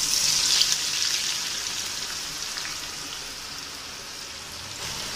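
Sliced onions tipped into hot oil in a kadhai, sizzling sharply at once and then easing into a steady frying hiss.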